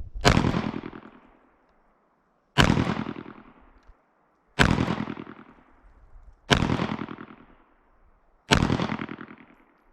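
Beretta pistol fired five times at a slow, even pace, about two seconds between shots. Each shot is followed by a ring that fades over a second or more.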